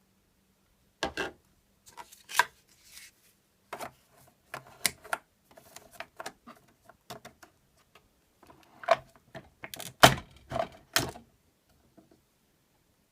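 Irregular clicks and knocks of plastic parts being handled on a Bosch Tassimo pod coffee machine, at the changeover from the milk disc to the coffee disc, with a few louder knocks about ten seconds in.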